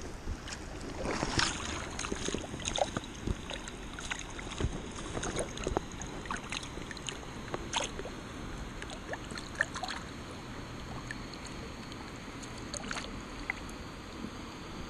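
River water running steadily, with irregular splashes and small knocks of water and gear being moved about, busiest in the first half.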